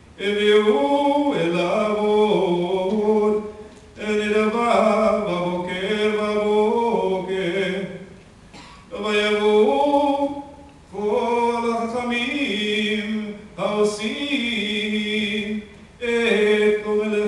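A man's voice chanting Torah cantillation in Hebrew, unaccompanied. The melody moves in held, stepping notes, in phrases of a few seconds with short breaths between them.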